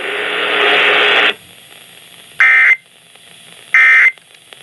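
Weather radio hiss for about a second, then two short, high, buzzing data bursts about a second apart. These are the Emergency Alert System (SAME) end-of-message tones that close a NOAA Weather Radio severe thunderstorm warning.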